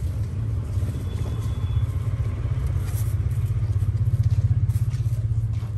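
A motor vehicle engine running close by, a low, rapid throbbing that swells about four seconds in and then eases, with a few faint clicks over it.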